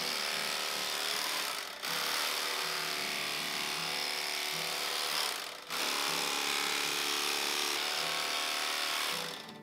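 Mighty Carver, a chainsaw-styled electric carving tool, running with a steady motor buzz. It cuts out briefly twice and winds down near the end.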